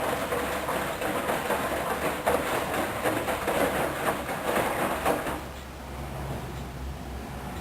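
Hoover Dynamic washing machine tumbling a duvet in the main wash: the drum turns with uneven sloshing and churning, then goes quieter about five seconds in, leaving a low hum.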